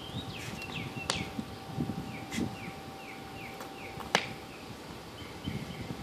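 Two dogs chewing and crunching raw meat and bones, with two sharp clicks, one about a second in and a louder one about four seconds in. A bird calls in the background with a run of short falling chirps.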